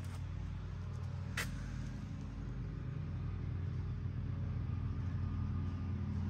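An engine idling steadily, with a single sharp click about a second and a half in.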